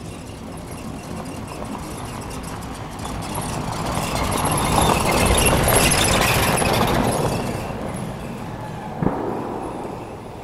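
A vehicle driving past, its rushing tyre and engine noise swelling to a peak about halfway through and then fading away. A single sharp click sounds near the end.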